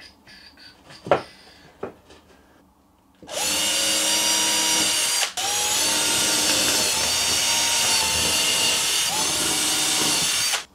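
Electric drill-driver driving screws into wood. The motor starts about three seconds in with a rising whine, stops for a moment about two seconds later, then runs again for about five seconds with another rise near the end. A single sharp knock comes about a second in.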